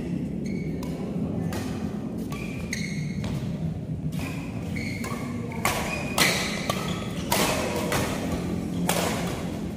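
Badminton rally: repeated sharp racket hits on the shuttlecock with short high squeaks of shoes on the court, the hits getting harder in the second half.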